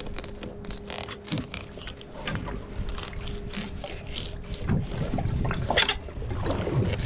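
Water sloshing against a drifting boat's hull, with scattered knocks and clicks from a fillet knife cutting a bait fish on a plastic bait board. A faint steady hum runs underneath.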